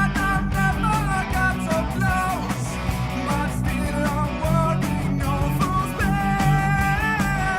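Rock music with guitar and a sung or lead melody over a steady beat.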